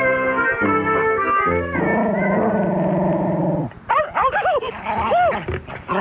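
Music with plucked notes, then about two seconds in a dog growls for about two seconds, followed by a few short rising-and-falling yelps in the second half.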